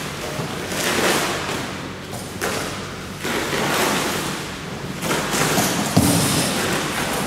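Plastic wrapping film and cardboard packaging rustling and crinkling in surges as they are pulled and torn off a frame machine bench, with thumps of cardboard and a sharp knock about six seconds in.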